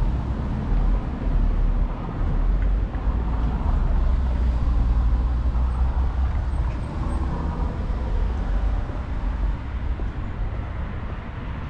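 Road traffic on a city avenue: a steady low rumble of passing cars.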